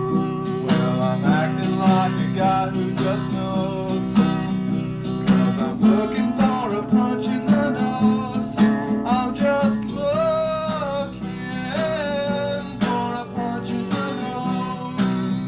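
Background music led by guitar, with sustained low notes and plucked notes.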